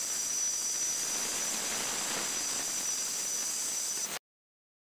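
Logo-intro sound effect: a steady hissing rush with a thin high whistle running through it, cutting off suddenly about four seconds in.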